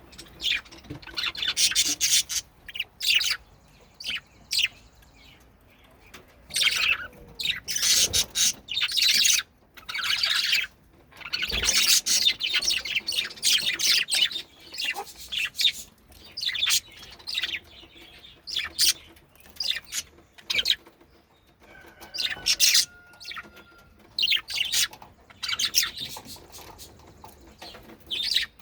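Budgies chirping and chattering in short, high-pitched bursts, in clusters with brief pauses between them.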